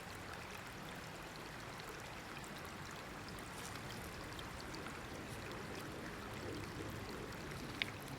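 Small fire of dry kindling burning in a fire pit: a steady soft hiss with faint scattered crackles and one sharper pop near the end.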